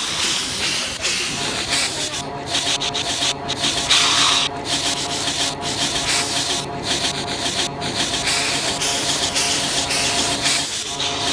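A person hissing again and again, long breathy hisses broken by short pauses, with a faint steady hum underneath.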